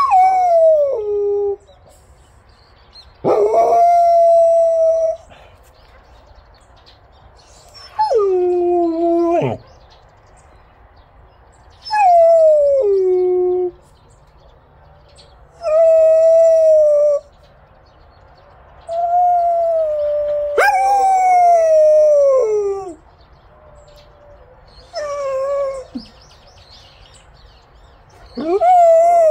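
Korean Jindo dog howling about eight times in a row, with short pauses between. Each howl is a drawn-out pitched call that slides downward at its end, several dropping off sharply.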